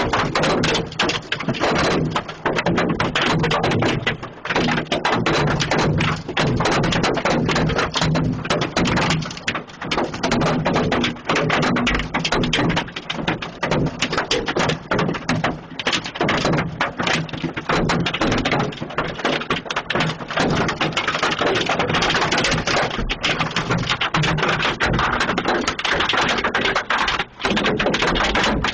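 Hailstones pelting down in a dense, continuous clatter of hard impacts, with a low steady hum underneath.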